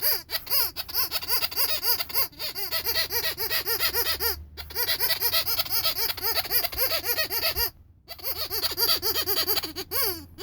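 Rubber cow squeaky toy squeezed rapidly over and over: about five short squeaks a second, each rising and falling in pitch. They come in runs broken by brief pauses, the longest about eight seconds in.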